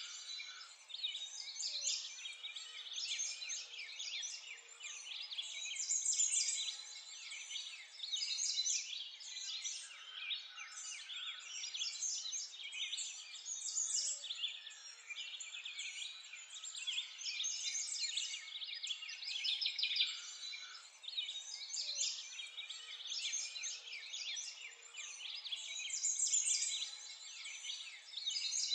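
A dense chorus of many small songbirds chirping and twittering, high-pitched and overlapping without a break.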